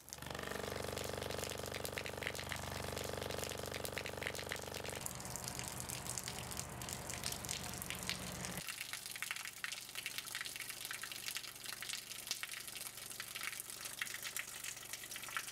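Water pouring from a tube vibrated by a loudspeaker, splashing and spattering, over a steady low electronic tone with many overtones from the speaker. The tone changes about five seconds in and cuts off suddenly after about eight and a half seconds, leaving only the splashing water.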